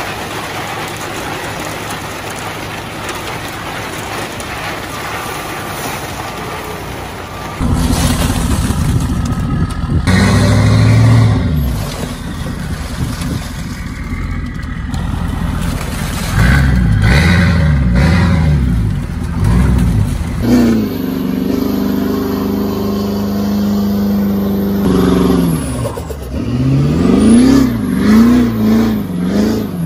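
Lifted diesel pickup truck's engine revving hard, its pitch rising and falling again and again as the tyres spin and throw dirt. For about the first seven seconds there is only a steady rushing noise, before the engine comes in loudly.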